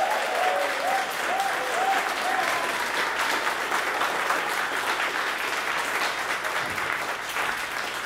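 A roomful of people applauding, steady clapping that slowly fades toward the end.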